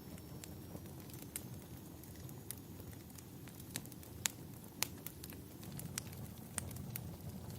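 Wood fire crackling: irregular sharp pops and snaps over a low steady rumble, with the two loudest pops a little past the middle.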